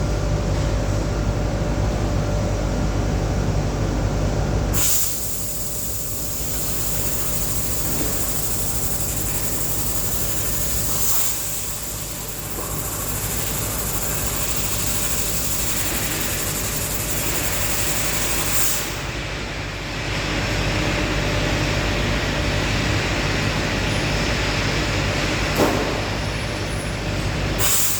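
Steady mechanical rumble and hiss of running machinery, changing abruptly about five seconds in and again near twenty seconds.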